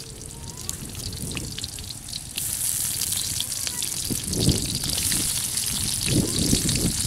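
Food frying in a little oil in a wok over a wood fire: a sizzle that starts suddenly about two and a half seconds in and then goes on steadily.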